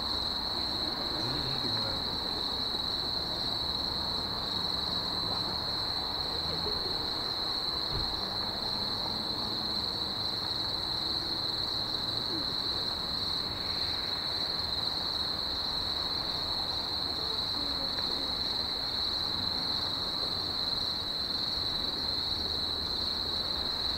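Steady high-pitched chorus of night insects, one unbroken shrill tone, with a faint low background rumble underneath.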